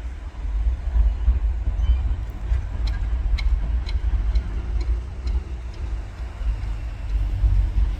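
CSX mixed freight train running on, a steady low rumble, with a string of light sharp clicks in the middle.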